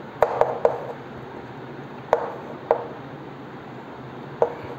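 Chalk knocking and tapping against a chalkboard as numbers are written: a quick run of three sharp taps near the start, two more around two seconds in, and one near the end, over a steady low room hum.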